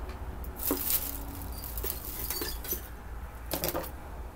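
Plastic packaging rustling and crinkling as small kitchen items are handled, with two louder bursts, about a second in and near the end.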